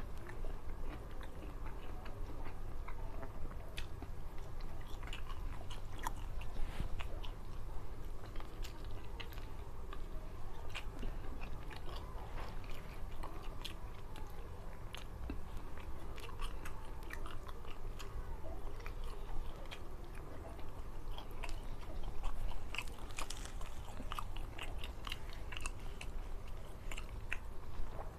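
Close-miked mouth sounds of a person chewing mouthfuls of rice and soy-sauce mackerel tuna (ikan tongkol kecap) eaten by hand, with many small clicks and occasional crunches throughout.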